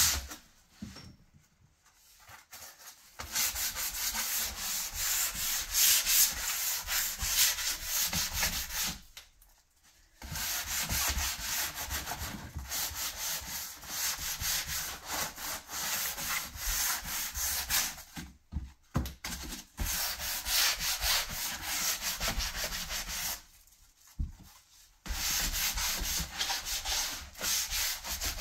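Sandpaper held by hand rubbing over a painted wooden cabinet-door frame in back-and-forth strokes, the final sanding of the finish. It stops briefly a few times between passes.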